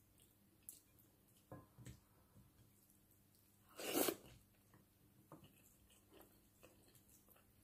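Close-miked eating: soft chewing, lip smacks and small clicks as pork rib meat and rice are eaten by hand. About four seconds in comes one louder, breathy rush of noise lasting about half a second.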